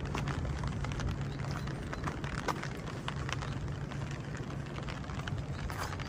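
Rain falling, with irregular ticks of drops hitting surfaces over a steady low rumble.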